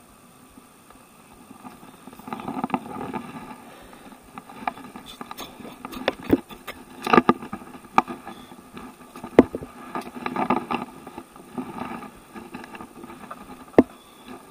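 Water splashing in repeated bursts as a hooked carp thrashes at the surface close to the bank, with several sharp knocks mixed in.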